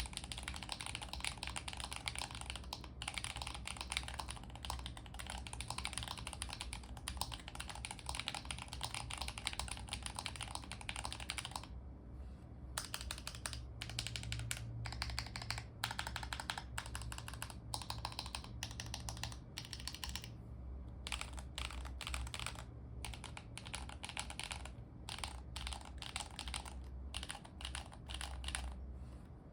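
Custom Akko ACR Alice Pro mechanical keyboard with lubed T1 Holy Panda tactile switches, an aluminium plate, no foam and doubleshot ABS Cherry-profile keycaps, typed on quickly and steadily. Around halfway the keystrokes become slower and separate: single presses of the large stabilized keys on lubed Finalkey screw-in stabilizers.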